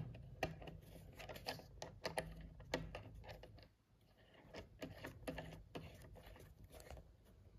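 Faint, irregular light clicks and rustling from fingers handling a plastic Wi-Fi dongle and its swing-out antenna, with a short quieter pause near the middle.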